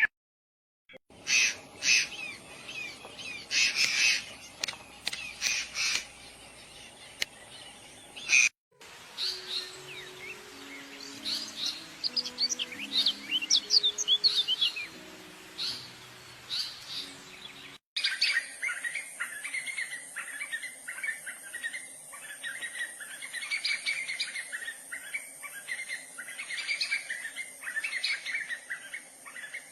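Birds chirping and calling in three spliced recordings, each cut off abruptly, about eight and eighteen seconds in. The first has clusters of quick chirps, the middle many high tweets over a few faint low notes, and the last a bird calling over and over with a steady high hiss behind it.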